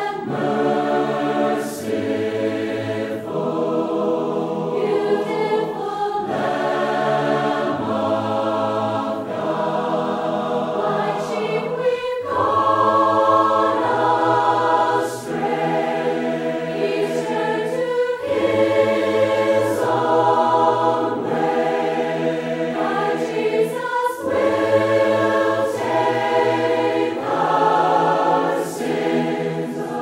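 A mixed choir singing a slow hymn unaccompanied in four-part harmony, moving from one held chord to the next.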